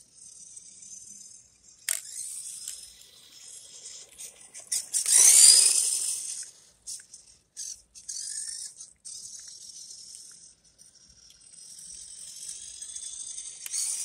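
WPL C24-1 RC truck's electric motor and two-speed gearbox whining at full throttle in high gear, the pitch gliding up and down as the truck speeds toward and past, with its tyres crackling over rough asphalt. It is loudest about five to six seconds in, with a sharp click about two seconds in.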